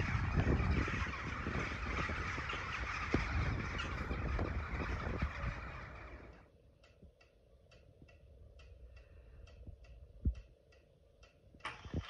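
A large flock of corvids calling together in a dense, continuous chatter, with wind rumbling on the microphone. About six seconds in this fades out and a cuckoo clock's pendulum ticks steadily, about two ticks a second, with one low thump near the end.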